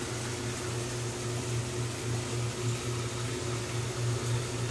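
Steady low hum of an aquarium pump, with the hiss of air bubbling up from an air stone.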